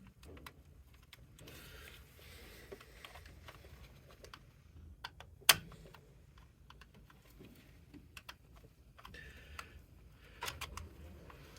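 Scattered light clicks and taps of hands working plastic clips and parts inside a printer, with one sharp snap about halfway through.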